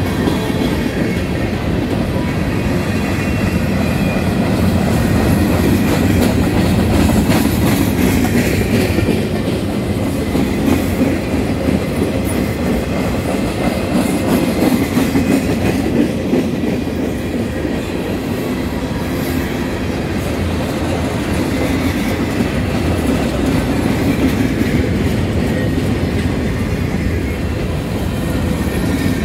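Freight train cars (covered hoppers and boxcars) rolling past at close range: a steady, loud rumble of steel wheels running on the rails.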